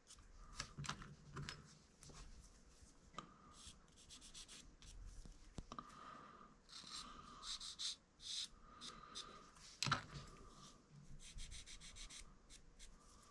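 Felt-tip marker (a Sharpie) rubbing along the edge of thin wooden deck planks in groups of short, faint scratchy strokes, inking the plank edges as caulking seams. A sharper click comes about ten seconds in.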